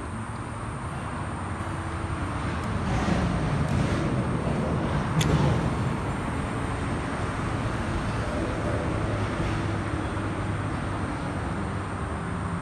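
A road vehicle passing: its noise swells a few seconds in and fades again, over a steady outdoor hiss, with one sharp click near the loudest point.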